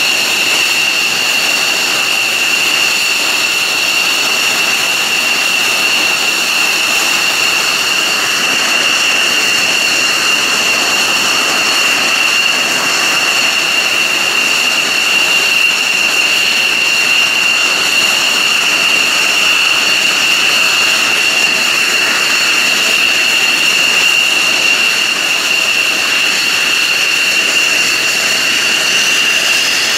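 F-16 fighter's Pratt & Whitney F100 turbofan running at ground idle: a loud, steady high-pitched whine over a hiss, unchanging throughout.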